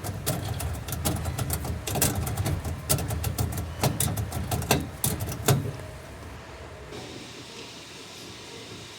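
A car running, heard from inside, with a steady low rumble and many sharp clicks and knocks over it. About six seconds in, the rumble and knocks drop away, leaving a quieter hiss.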